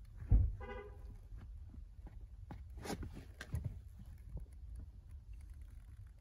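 Allen Edmonds Cody woven leather tassel loafers working a car's rubber-padded pedals: a thump about a third of a second in, a brief squeak just after, then a few light taps and clicks, over a low steady rumble.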